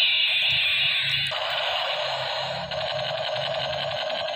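Battery-powered toy space gun playing its electronic blaster sound effect through a small speaker: a falling zap at the start, then a steady buzzing hiss that turns into a fast, even pulsing about two-thirds of the way through.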